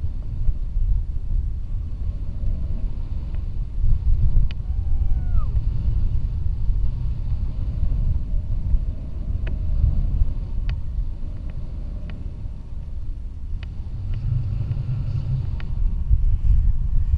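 Wind rushing over an action camera's microphone during a tandem paraglider flight: a loud, gusting low rumble.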